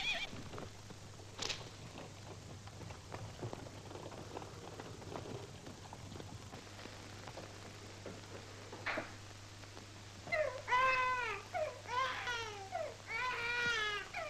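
Newborn baby crying: three wailing cries, each rising and then falling in pitch, starting about ten seconds in, over a faint steady hum.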